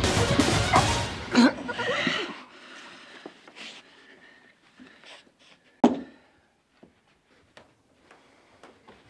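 Staged fight-scene sounds: a loud scuffle over music that cuts off about two seconds in, then after a pause a single sharp thud, the loudest sound, with a short ringing tail.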